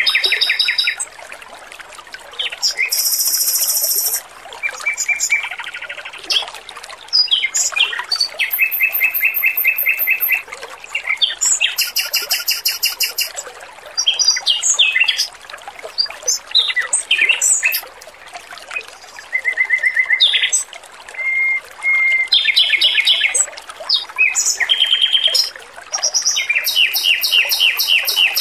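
Male Pekin robin (red-billed leiothrix) singing: rapid high trills and runs of repeated notes in short bursts every second or two, over a steady trickle of water.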